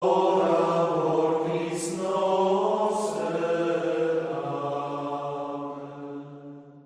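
Voices singing a slow chant in long held notes, fading out near the end.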